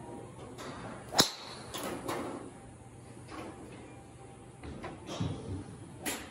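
PRGR RS5 titanium driver striking a range ball about a second in: one sharp crack at impact. Several fainter knocks follow, with another sharp crack near the end.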